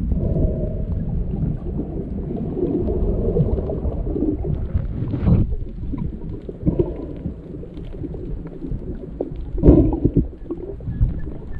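Muffled underwater rumble and gurgle of water moving as a free diver swims down over a reef, heard from under the surface. Scattered small clicks and two louder knocks come about five and ten seconds in.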